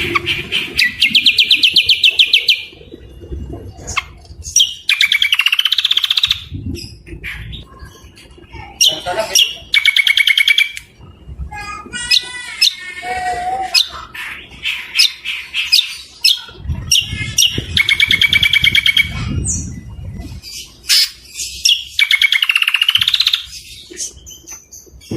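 Songbirds singing in repeated rapid, harsh trilled phrases of a second or two, with short sharp notes between them and a warbling run near the middle: a masteran song recording of greater green leafbird (cucak kombo) mixed with coarse filler birds.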